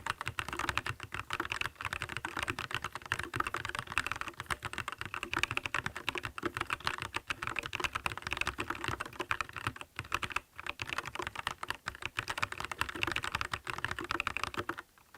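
Monstargear Ninja87 Pro RGB mechanical keyboard typed on quickly and steadily: its Gateron yellow linear switches and ABS keycaps clack in a dense, continuous run, with a brief break near the end. The sound is clean, with only slight case ring and spring noise.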